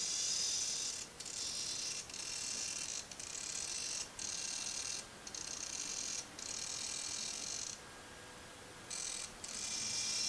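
Continuous-rotation (360-degree) hobby servo driving a camera gimbal's tilt axis through its gears, running with a high-pitched whine made of several steady tones. It stops and restarts about eight times as the PID tracking controller's output changes, with one longer pause of about a second near the end.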